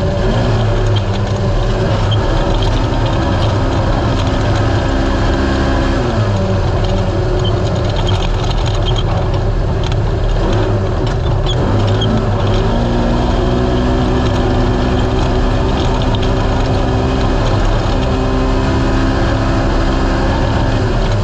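Naturally aspirated race UTV engine running hard at high revs. The revs dip and climb back a few times as the throttle is lifted and reapplied. Scattered knocks and rattles sound through the middle stretch.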